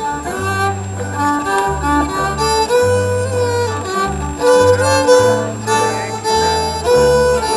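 Old-time fiddle band playing an instrumental lead-in: fiddles carry the melody over strummed string accompaniment and a bass line that changes note about twice a second.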